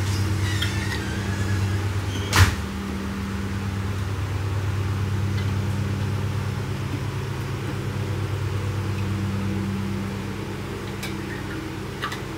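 A metal canning lid clicks sharply as it is set down on a glass jar from a magnetic lid lifter, about two and a half seconds in, with two fainter clicks near the end. A steady low hum runs underneath.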